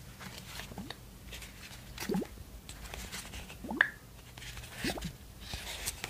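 Small red cardboard box being handled and its snug lid worked open, card rubbing on card in four or five short rising squeaks.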